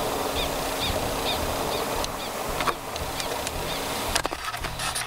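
Prairie dog alarm calls: short rising-and-falling chirps repeated about twice a second over wind noise, stopping a little past halfway. A sharp click comes about two and a half seconds in, and a few knocks near the end.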